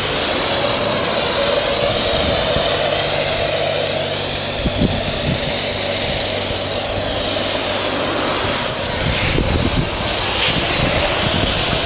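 Self-service car wash lance spraying active foam onto a car: a steady loud hiss of spray with a low hum under it.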